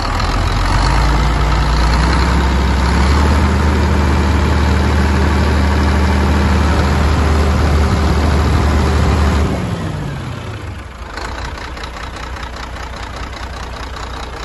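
Scania DC12.01 12-litre straight-six diesel with PDE unit injectors, revved up from idle about half a second in, held at raised revs for several seconds, then dropping back to idle about ten seconds in.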